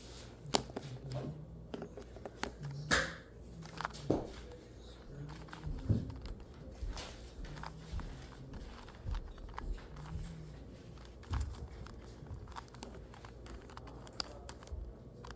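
A 2x2 Rubik's cube being turned through an algorithm: quick, irregular plastic clicks and rattles as the layers are twisted one after another.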